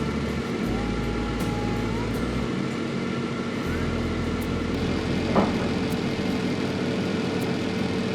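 Air fryer running, its fan giving a steady whirring hum while it cooks, with a single click about five seconds in.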